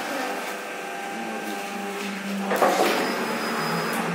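Automatic paper plate machine running, with a steady motor hum and low drone. A short, loud burst of noise comes about two and a half seconds in.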